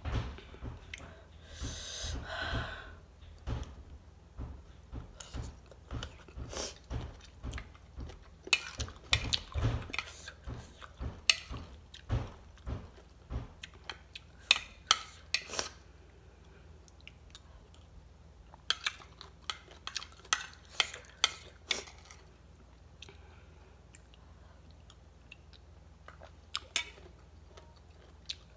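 Close-up eating sounds: crunchy mango salad being chewed, with a metal spoon clinking and scraping on a plate. Sharp clicks and crunches come in clusters through the first two thirds and thin out near the end.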